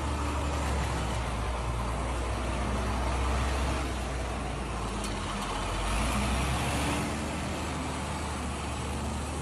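Diesel engine of a wheel loader running with a steady low rumble as the machine works at a house wall being demolished.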